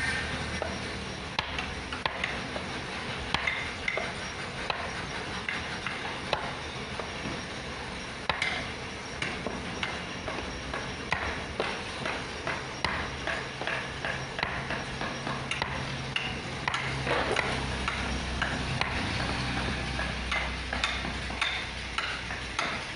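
Wooden mallet tapping a carving chisel into a wooden board: a run of sharp taps at an uneven pace.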